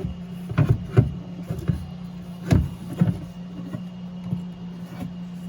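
Door latch and lock actuator assembly knocking and clattering against the inside of a car door shell as it is twisted and worked into place, a few sharp knocks in the first three seconds over a steady low hum.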